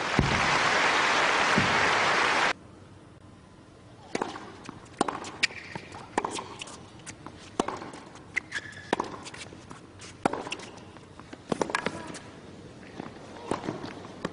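Crowd applause that cuts off abruptly about two and a half seconds in. Then comes a tennis rally on a hard court: sharp racquet hits and ball bounces about every half second, with a few short squeaks between them.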